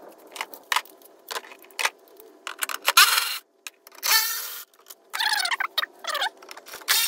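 Ratchet wrench on a long extension with a 10 mm socket, clicking in short irregular bursts as bolts are loosened, with metallic clinks of the tool.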